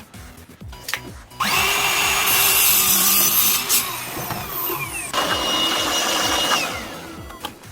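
A power tool starts abruptly and runs loudly for about five seconds, then winds down, its whine falling in pitch as it stops.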